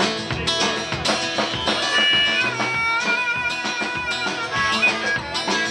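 Live band playing an instrumental passage on acoustic guitar and drum kit, with the drums keeping a steady beat. A high held note bends in pitch through the middle.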